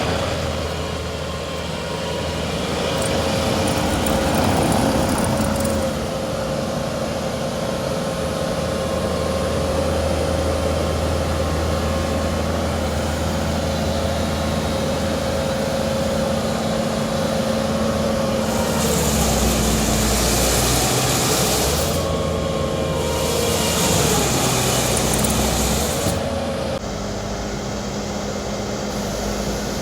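Bobcat T770 compact track loader's diesel engine running steadily, its pitch dropping for a moment a few times. Around two-thirds of the way through there are two stretches of added high hissing.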